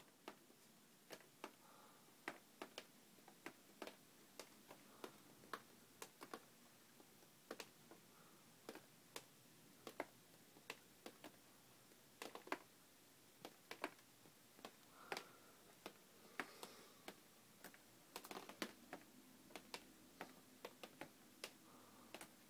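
Faint, irregular ticks of water drops falling from an air conditioner, roughly one or two a second, sometimes a few close together: condensate water that keeps dripping.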